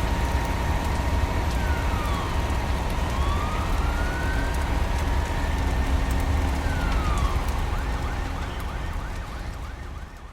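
Fire engine siren wailing in slow rising and falling sweeps, switching near the end to a fast yelp, over a heavy low rumble and the crackle of burning wood. The whole mix fades out over the last few seconds.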